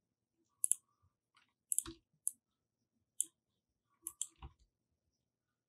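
Scattered clicks of a computer mouse, about eight short, sharp clicks at irregular intervals, a few with a soft low thump.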